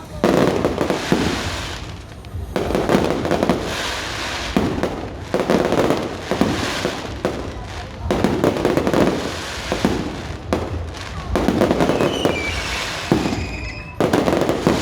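Fireworks going off in quick succession: repeated booms with crackling tails every second or two, and a whistling firework near the end.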